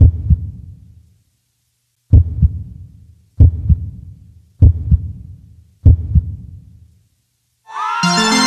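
Heartbeat sound effect: low double thumps, lub-dub, five of them about one and a quarter seconds apart, with dead silence between. A music track with sustained tones comes in near the end.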